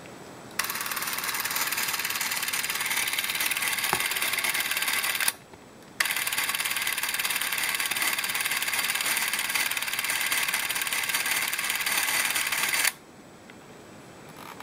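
Minolta Autopak-8 D6 Super 8 cine camera's motor and film-advance claw running steadily with the cartridge chamber empty, in two runs: about five seconds, a brief stop, then about seven seconds more, each starting and stopping sharply.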